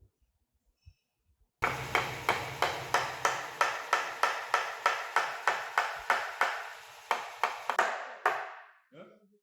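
Hammer striking wood in a quick, even series of blows, about three a second, some twenty in all. It starts abruptly about a second and a half in and stops near the end.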